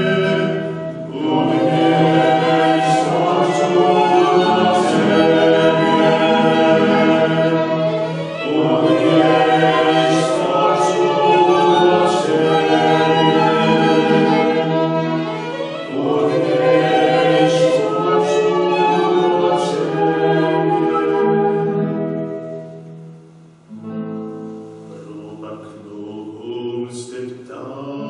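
Mixed choir of men's and women's voices singing a slow hymn in sustained chords, accompanied by flute and violin. The singing thins out and drops quieter about three-quarters of the way through, then comes back in near the end.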